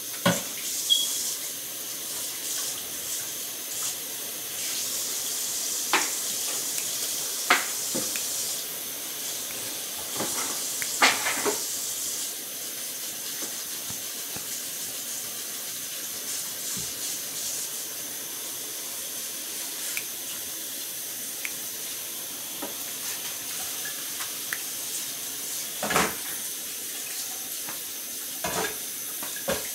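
A steady watery hiss in a home kitchen, broken by a handful of short clinks and knocks of pots and utensils, a few near the start and two near the end.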